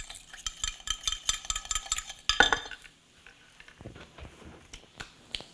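A metal utensil stirring sauce in a bowl: quick, ringing clinks against the bowl for a couple of seconds, the loudest about two and a half seconds in, then a few fainter taps.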